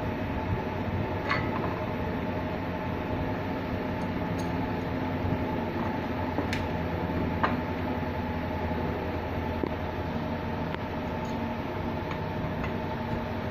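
Steady fan hum with a few faint sharp clicks of small parts being handled.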